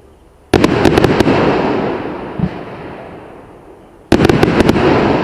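Svea Victory fireworks cake firing: about half a second in, a volley of rapid sharp cracks that dies away into a fading crackle over a few seconds. A dull thump comes in the middle, and a second volley of cracks starts about four seconds in.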